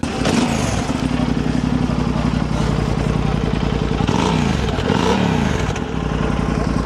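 Twin-cylinder adventure motorcycle engine idling, its exhaust blipped twice with quick rises and falls in revs about four and five seconds in.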